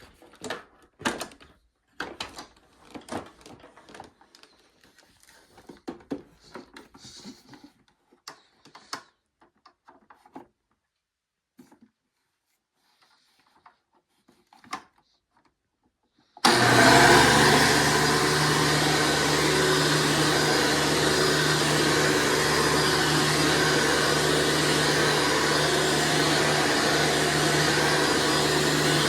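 Scattered clicks and knocks, then about sixteen seconds in a 2003 Hoover Runabout Deluxe vacuum cleaner switches on suddenly and runs steadily, its motor giving a loud, even rush of air with a low hum.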